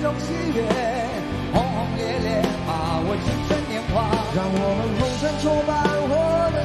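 Live rock band with male lead vocals singing a chorus, backed by electric and acoustic guitars, keyboards and drums.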